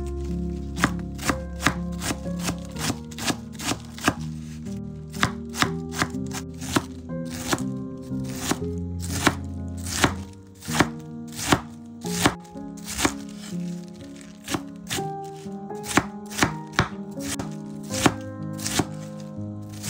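A knife chopping on a cutting board in quick, irregular strokes, about two a second, over steady background music.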